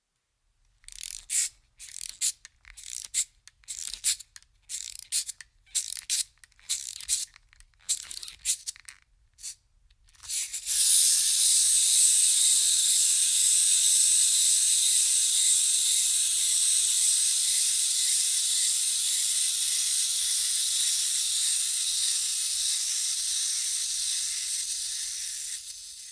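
Aerosol spray-paint can: a string of short spray bursts, one or two a second, then a long continuous spray from about ten seconds in.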